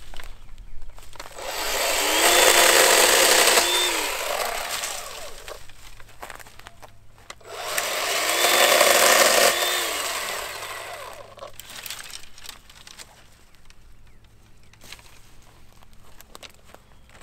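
Litheli 40V cordless electric chainsaw run twice, cutting into brush. Each time the motor whines up to speed, runs steadily for about two to three seconds with the chain tearing through wood, then winds down as the trigger is let go. Brush rustles between the two runs.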